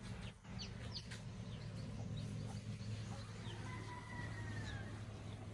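Birds chirping, many quick high chirps, with one longer, slightly falling call about four seconds in, over a steady low hum.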